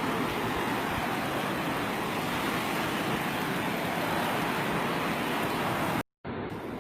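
Ocean surf breaking and washing on the beach as a steady rush of noise. It cuts out for a split second about six seconds in and resumes somewhat quieter.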